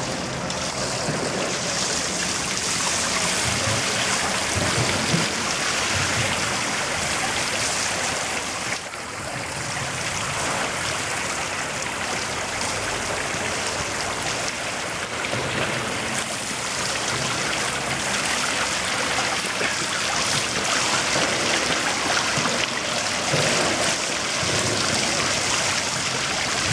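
Steady rush of running water, with a brief drop in level about nine seconds in.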